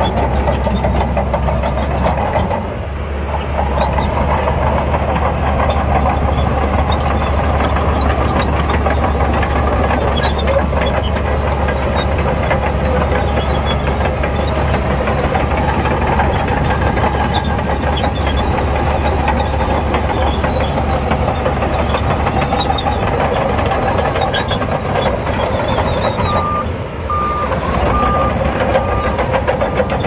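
Bulldozer's diesel engine running steadily under work, dipping briefly twice. Near the end a reversing alarm starts beeping about once a second.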